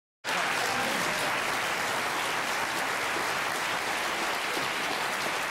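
Studio audience applauding steadily. The applause cuts in abruptly just after the start, out of dead silence.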